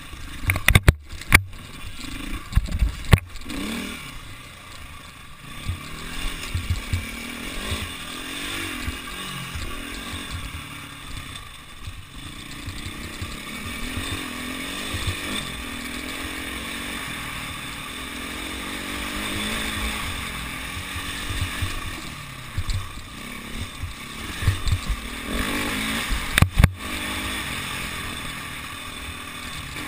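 Enduro dirt bike's engine, heard from a camera on the bike, revving up and down as it rides a dirt track. A few sharp knocks come about a second in and again near the end.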